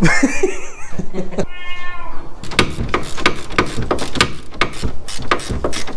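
A short wavering cry and a brief held pitched squeal, then a run of irregular sharp clicks and knocks, like hand tools on metal.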